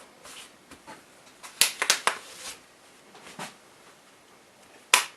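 Plastic laptop cover clips snapping into place as it is pressed back on by hand: a quick cluster of sharp clicks, a fainter one, then the loudest single snap near the end.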